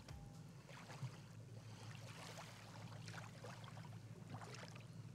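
Faint water lapping and splashing in irregular swishes over a steady low hum.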